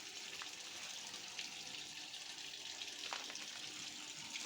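Whirlpool washing machine running with water flowing in, a steady hiss with a few faint ticks.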